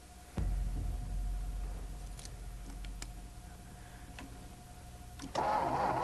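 Inside a car: a sudden low thump about half a second in, then a low rumble that slowly fades, with a few faint clicks. Near the end a car's engine and road noise come in loudly.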